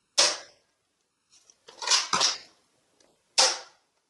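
Hard plastic clicking and clattering of a toy sniper rifle blaster being handled, in three short bursts: near the start, about two seconds in, and about three and a half seconds in.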